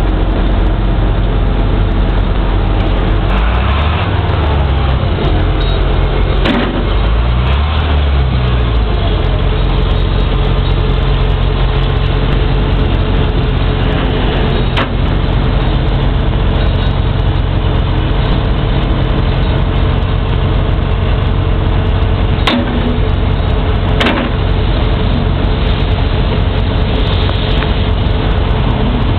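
Excavator diesel engine running steadily while the boom, bucket and thumb hydraulics are worked; the engine note dips and recovers twice in the first eight seconds as it takes the hydraulic load. A few sharp metallic knocks come through over the engine.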